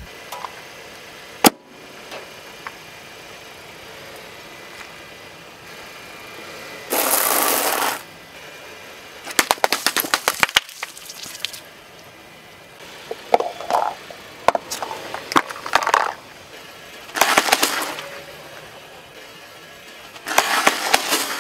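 A car tyre rolling over a string of objects and crushing them one after another. About a second and a half in, an inflated ball bursts with one sharp pop. Later come a burst of hiss, runs of fast crackling and crunching snaps, and near the end a carton of eggs cracking under the tyre.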